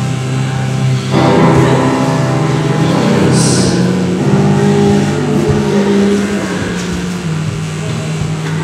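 Music with long, held low droning notes that shift in pitch now and then, and a brief hiss about three seconds in.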